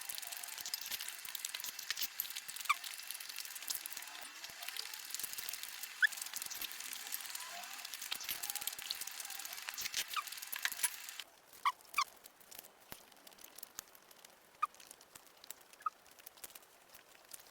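Close-miked eating sounds: wet chewing and mouth smacking, many small clicks with brief squeaks. About eleven seconds in, the background hiss drops away and the clicks become sparse.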